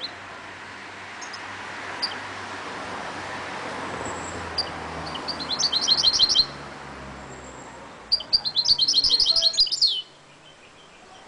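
Caged goldfinch × canary mule singing over steady background noise. Scattered single chirps give way to a fast trill of clicking notes about halfway through. Near the end comes a longer, faster trill that closes with a downward sweep.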